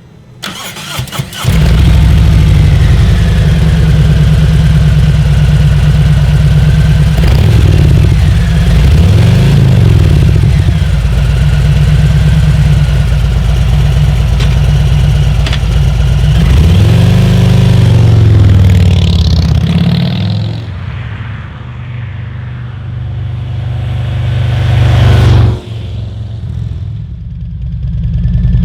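Harley-Davidson Milwaukee-Eight V-twin touring motorcycle exhaust: the engine is started about a second in, then idles and is revved up and back down twice. It runs quieter for a few seconds near the end, dips briefly, then runs loudly again.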